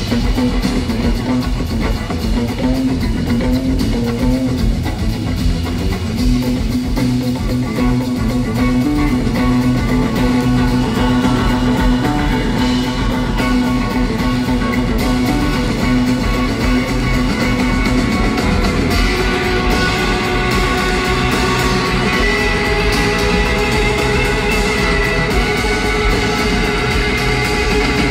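Live electric bass guitar solo over drums, played loud through a large arena's sound system. Held notes ring out, and about two-thirds of the way in higher sustained notes from other instruments join in.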